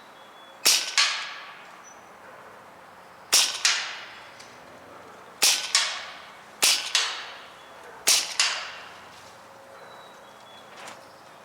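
Hatsan Blitz .22 PCP air rifle firing five single shots a second or two apart. Each shot is followed about a third of a second later by a second crack, the pellet hitting the target downrange.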